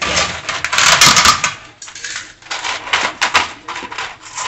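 Small metal grill-assembly bolts clicking and rattling as they are handled out of their hardware pack. There is a dense clatter in the first second and a half, then scattered single clicks.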